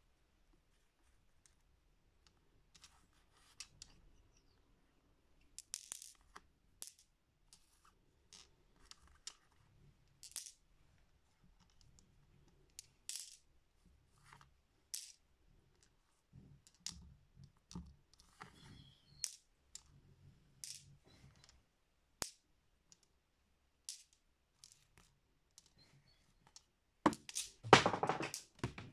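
Polished rune stones clicking against each other and the tabletop as they are picked up and moved one by one, with a short burst of clattering near the end as a handful is swept together.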